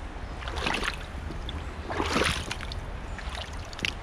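Wellington boots wading through shallow river water: two sloshing steps, the second and louder about two seconds in.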